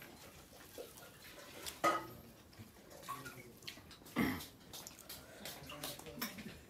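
Eating rice by hand from a plate: fingers squishing and mixing rice with dal, with scattered light clicks of the plate and a bowl, and two sharper knocks, about two and about four seconds in.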